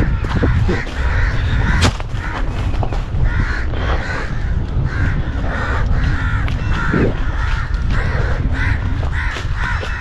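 Crows cawing over and over, several harsh calls a second. A heavy low rumble runs underneath.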